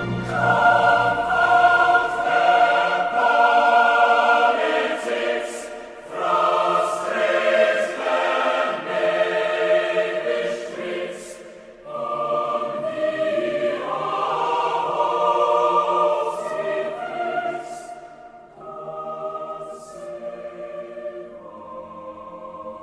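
A choir singing slowly in phrases of long held notes, with short breaks between phrases; the last few seconds are softer.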